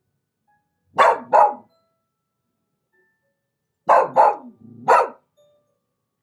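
A dog barking: two barks about a second in, then three more a little before the end.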